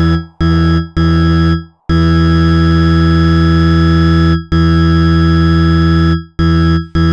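Loud synthesized low tone built on 165 Hz and its octaves, played as a phone water-eject sound meant to shake water out of a speaker. It cuts on and off in pulses with short breaks, the longest about two and a half seconds, and falling sweeps run over it in the first second and a half.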